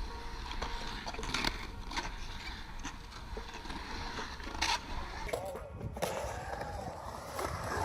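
Skateboard wheels rolling on concrete, with a few sharp clacks of the board, and voices in the background.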